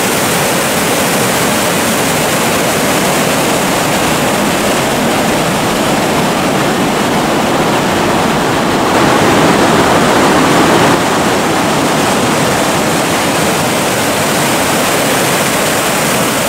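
Loud, steady rushing of a mountain creek's white water cascading down a narrow rocky gorge.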